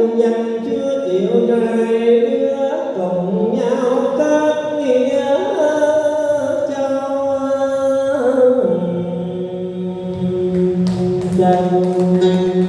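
Tân cổ singing: a voice holding long, sliding melismatic notes in the cải lương style, giving way about two-thirds in to instrumental accompaniment with a steady low held note and plucked strings.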